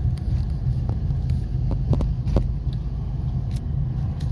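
Steady low rumble of engine and road noise heard from inside a moving 2013 Honda Civic, with a few short clicks around the middle.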